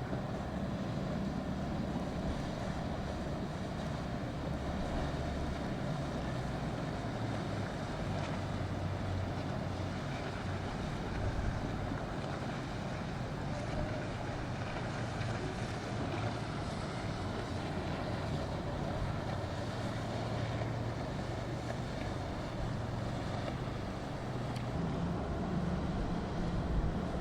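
Boat engines running in a low, steady hum, with wind on the microphone and the wash of waves.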